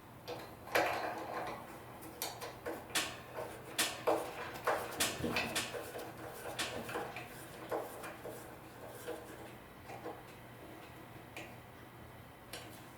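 Irregular light clicks and knocks of small metal hardware, coat hooks and screws, being handled and screwed onto a hall tree's frame. They come thick for most of the first eight seconds, then only now and then.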